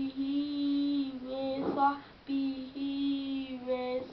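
Young boys chanting a salawat, the Arabic blessing on the Prophet Muhammad, in unison. The voices hold long, drawn-out melodic notes, with short breaks about a second in and again about two seconds in.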